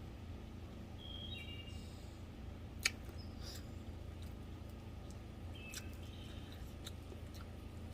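Faint bird chirps, a few short calls about a second in and again near six seconds, over a low steady background noise. A single sharp click comes about three seconds in.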